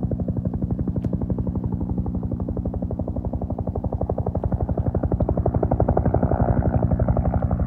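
Bell 212 helicopter with its two-bladed main rotor beating in a steady, rapid pulse of about ten blade passes a second, over its turbine engines. It gets a little louder near the end.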